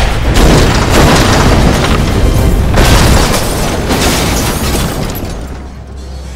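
Action-film sound effects of a car blown up and flipped over: explosion booms and crashing noise mixed with the music score. Loud for about four seconds, then fading.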